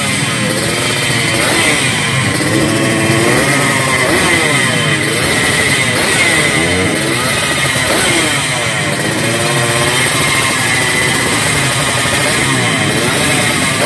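Yamaha RX-King racing engine, a single-cylinder two-stroke bored to 140 cc, with an expansion-chamber exhaust, revved over and over with no load: the pitch climbs and drops again and again in quick throttle blips.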